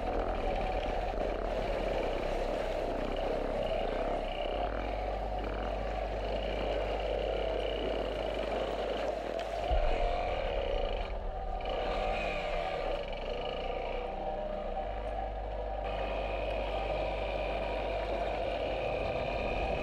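Yamaha XT250 Serow's air-cooled single-cylinder engine running as the motorcycle rides across a rocky river bed and onto a gravel trail, with stones clattering under the tyres and a sharp knock about ten seconds in.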